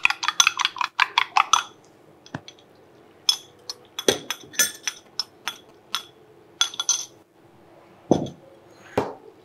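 A utensil clinking against dishes: a fast run of about eight strikes a second for the first two seconds, then scattered single clinks and a couple of duller knocks.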